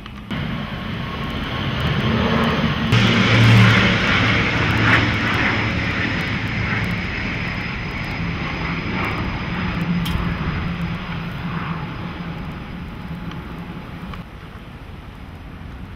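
Airplane flying over, its engine noise swelling over the first few seconds, loudest about three to five seconds in, then slowly fading away.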